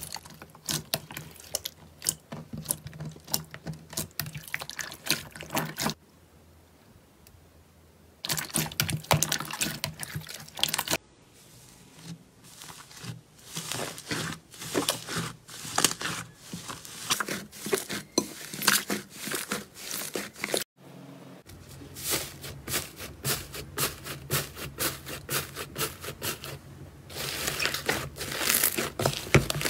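Hands kneading, squeezing and pressing slime in a bowl: dense sticky clicks, crackles, pops and squelches as the slime stretches and traps air. The sound changes abruptly a few times between clips of different slimes, with a brief lull partway through.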